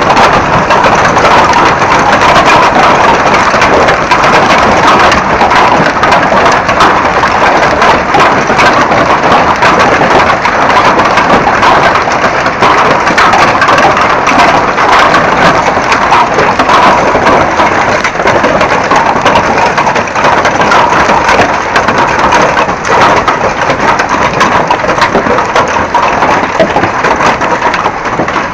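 Large hailstones pelting down in a loud, dense, steady clatter of countless small impacts.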